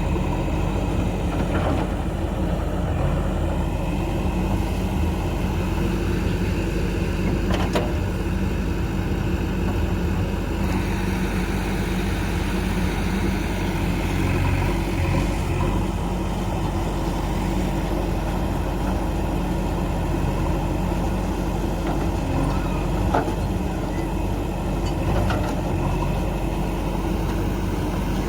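Diesel engine of a JCB 3DX backhoe loader running steadily as it digs and loads mud, with a few sharp metallic clanks from the bucket and arm.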